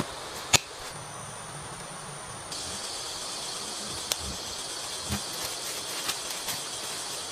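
A digging tool strikes the forest soil once with a sharp knock about half a second in. A steady high insect chorus follows, getting louder about two and a half seconds in, with light footsteps in the leaf litter.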